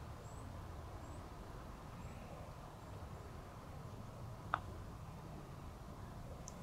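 A single sharp click of a putter face striking a golf ball on a putt, about four and a half seconds in, over a low steady outdoor background.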